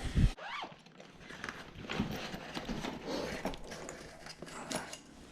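Footsteps walking, an irregular run of short knocks.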